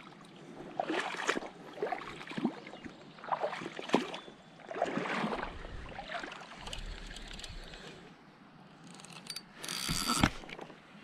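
River water sloshing and splashing around a wading angler's legs in irregular bursts, with a louder splash and a few sharp clicks about ten seconds in.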